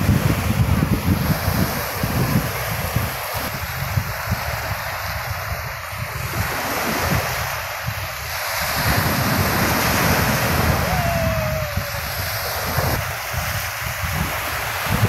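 Small sea waves breaking and washing over the shallows, with wind buffeting the microphone in uneven gusts.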